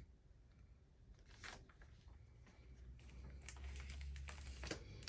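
Faint rustling and light taps of paper and cardstock being handled: a few brief scrapes, coming more often in the second half.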